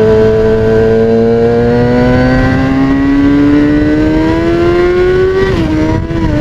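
2003 Kawasaki ZX-6R's inline-four engine running through an aftermarket MotoGP-style exhaust. It pulls up steadily in revs under acceleration, then the revs drop sharply about five and a half seconds in and settle lower.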